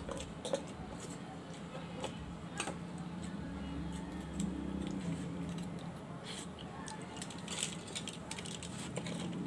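Scattered light clicks and scrapes of a metal spoon against boiled scallop shells as the meat is scooped out, over a steady low hum.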